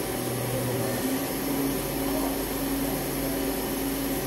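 Samsung SL-25/1000 CNC turning center running, with a steady machine hum. About a second in, one steady tone in the hum gives way to a higher one, which stops near the end.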